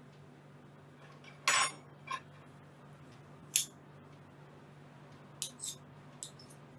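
A spoon clinking and tapping against a bowl while scooping and dropping peanut butter: about seven short clinks, the loudest about a second and a half in.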